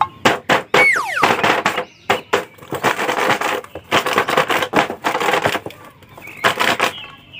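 Plastic shrink-wrap and a cardboard toy box crinkling and crackling as they are handled and turned over, in quick irregular runs of sharp crackles. A short falling tone sounds about a second in.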